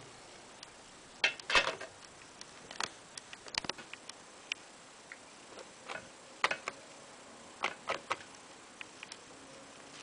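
Handling noise around a plastic air conditioner mesh filter: a dozen or so light clicks and taps at irregular intervals, some in quick little clusters, over a quiet background.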